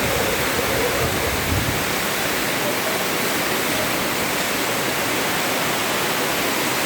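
Torrential rain pouring down in a steady, even rush.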